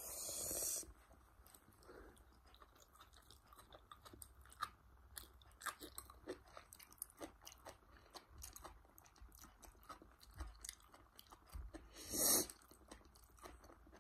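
Close-miked chewing of asparagus curry and paratha: soft crunches and wet mouth clicks, with two short louder hissing noises, one at the start and one near the end.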